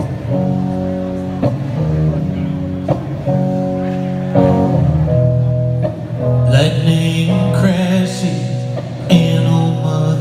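Live rock band: ringing electric guitar chords that change every second or so over bass and drums, with a man singing from about six seconds in.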